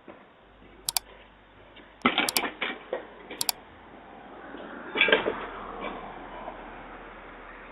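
Knocks and bangs picked up by a Ring doorbell camera's microphone as a man vandalizes a house: a cluster of sharp impacts about two seconds in and another loud clatter around five seconds.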